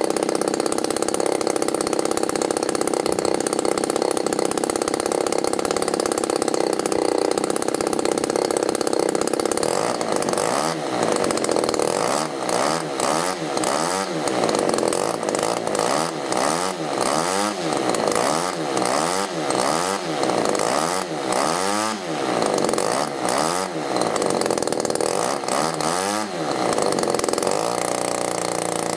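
NGH GT-17B 17 cc two-stroke petrol model aircraft engine with its propeller on its first run, running steadily at first, then revved up and down repeatedly, about once a second, from about ten seconds in, dropping back to a steady lower speed near the end.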